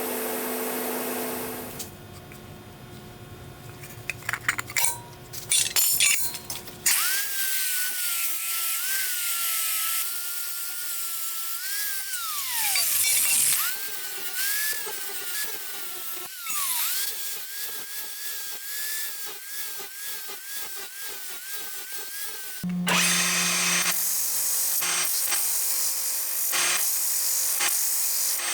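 A run of power-tool work. The main sound is a high-pitched motor whine whose pitch dips over and over as the tool is loaded, winding down a couple of times in the middle. It is cut together with other shop-tool noise and clicks before and after.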